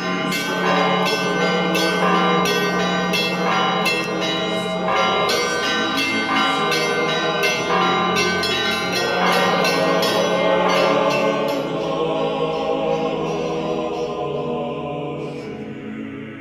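Church bells ringing: several bells of different pitch struck in quick, irregular succession over a low, steady hum. The strikes thin out and the ringing dies away in the last few seconds.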